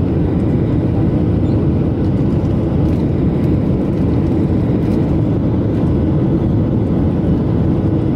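Steady cabin noise of a jet airliner on approach, heard from a seat over the wing: a continuous low rumble of engines and airflow that does not change.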